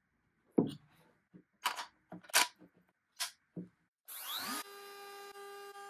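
Clicks and knocks as a bit is fitted into a compact trim router and the tool is handled. About four seconds in, the router motor starts with a rising whine as it spins up, then runs at a steady pitch.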